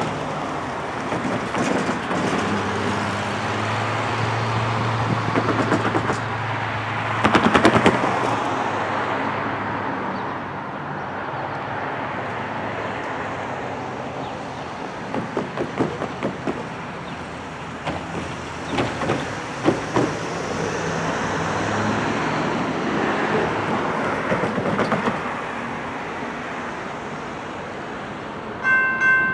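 Road traffic crossing a railroad grade crossing: cars passing, tyres knocking over the rails in short groups. Near the end the crossing's warning bell starts ringing.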